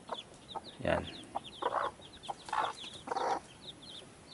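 Newly hatched chicks peeping continuously in short, quick, falling chirps, several a second, with a mother hen clucking a few times in between.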